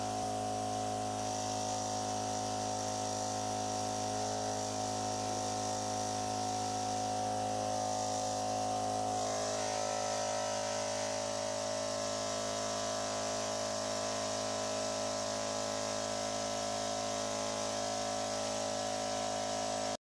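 Magtopressor KW215 linear electric-drive air compressor running, a steady buzzing hum with many overtones as it pumps air into its 5-liter tank. Its tone shifts slightly about halfway through as the load rises, and the sound cuts off suddenly at the very end.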